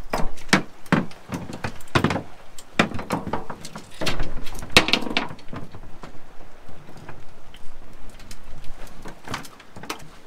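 A run of knocks and thumps from fishing gear being handled against a boat's metal rail and deck. They come thick for the first five seconds or so, then thin out, with one more knock near the end.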